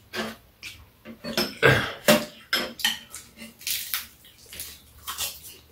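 Metal spoons and chopsticks clinking and scraping against ceramic bowls while eating, in irregular short clicks.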